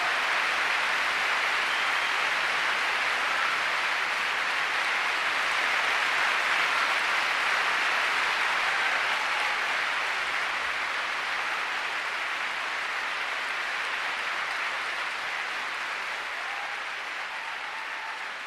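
Concert audience applauding: a dense, steady clapping that slowly fades over the second half.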